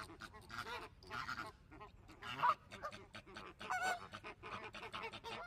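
Waterfowl calling: a few short nasal honks and quacks from mallard ducks and a flamingo, the clearest two about halfway through, with light clicks in between.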